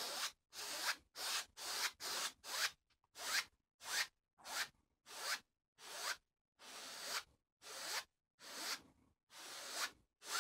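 A 1-inch paint brush stroked back and forth across an oil-painted canvas, about two short scratchy strokes a second, pulling the paint straight across to lay in reflections under the rocks.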